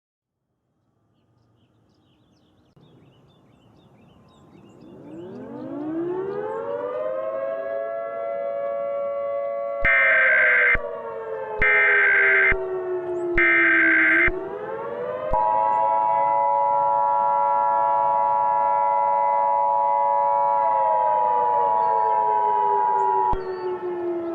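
A civil defense siren winds up out of silence a few seconds in and keeps sounding, its pitch sagging and rising again. Over it come three short harsh data bursts of an Emergency Alert System header, then the EAS two-tone attention signal, a steady two-note tone held for about eight seconds.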